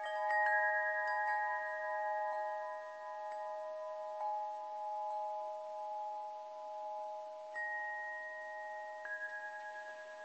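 Chimes ringing: single notes of different pitches struck about once a second, thinning out after about five seconds, each tone ringing on long and overlapping the next.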